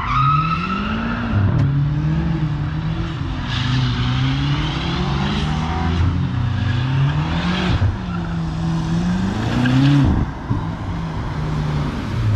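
A car drifting: its engine revs up and down over and over while the tyres squeal and skid. The tyre noise eases about ten seconds in, leaving the engine running lower.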